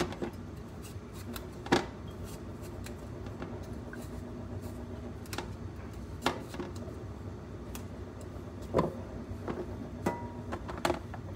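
Scattered light clicks and knocks of knife work on a cucumber at a kitchen counter, a few seconds apart, over a faint steady background with a few held tones.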